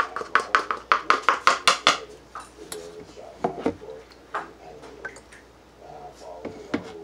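A metal spoon tapping quickly inside a plastic funnel, about a dozen knocks in the first two seconds, working flour down through the funnel into a balloon. After that come a few scattered spoon clinks as more flour is scooped and added.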